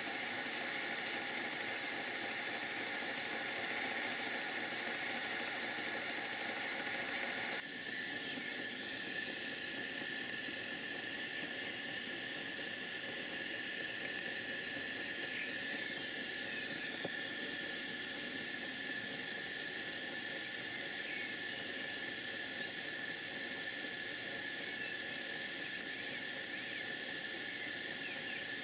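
Live steam model GWR 1466 tank locomotive standing in steam, steam hissing steadily with a high whistling tone running through it. About seven and a half seconds in, the deeper part of the hiss drops away, leaving a thinner, higher hiss and tone.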